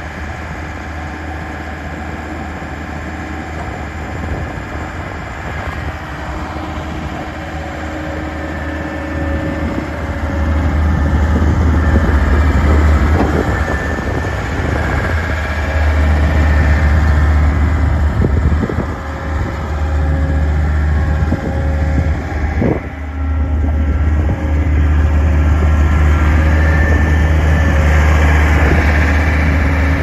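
John Deere 325 skid steer's diesel engine running steadily, louder from about ten seconds in.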